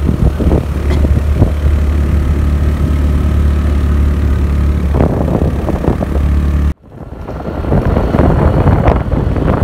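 Motorbike engine running steadily while riding, with wind rushing over the microphone. About seven seconds in the sound cuts off, then returns as mostly rough wind and road rumble.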